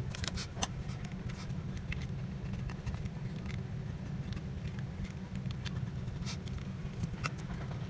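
Scattered light clicks and scrapes of a metal pry tool working around the edge of a smartphone's display frame, over a steady low hum.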